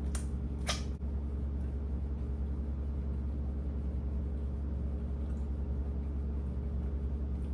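A steady low machine hum, with two short light clicks in the first second.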